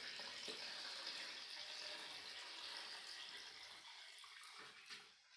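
Milk poured from a steel milking bucket into a stainless steel pail, a steady splashing stream that thins to a trickle about four seconds in.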